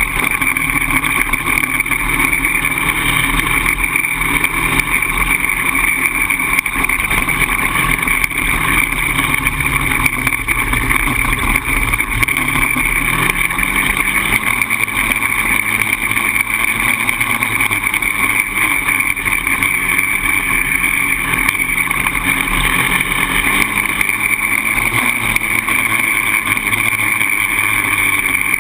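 Polaris Outlaw 525 quad's single-cylinder four-stroke engine running steadily under load while being ridden, its revs rising and falling a little with the throttle.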